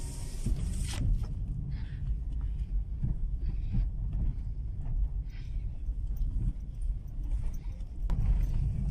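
Car driving on a rough road, heard from inside the cabin: a steady low rumble of tyres and engine. A rush of air noise stops abruptly about a second in.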